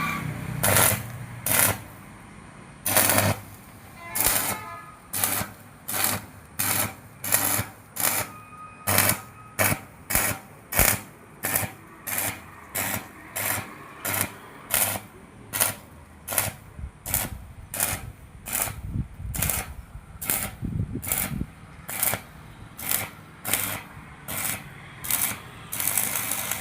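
Stick-welding arc crackling in short bursts, about three every two seconds, one after another without a break.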